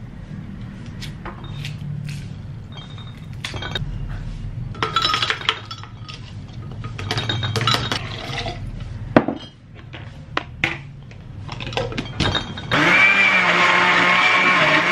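Ice cubes and cucumber pieces clinking and knocking as they go into a glass blender jar. About two seconds before the end, the electric blender starts suddenly and runs steadily, crushing the ice and cucumber.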